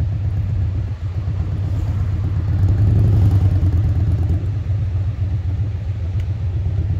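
Steady low rumble of a car, heard from inside the cabin, swelling for a second or so about halfway through.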